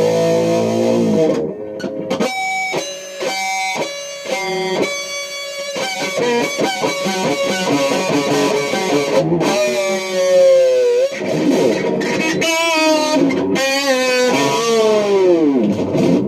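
Electric guitar playing a melody: quick picked runs of notes, and several notes bent or slid downward in long falling glides.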